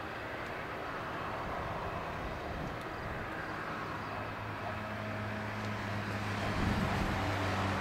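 Distant jet engine noise from a TAP Airbus A320 climbing away after take-off, a steady wide rushing roar. About five seconds in, a steady low hum comes in and grows louder.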